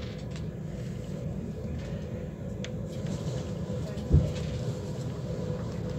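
Deutsche Bahn ICE 4 high-speed train running, heard from inside a passenger car: a steady low rumble with a faint steady hum. A single low thump about four seconds in.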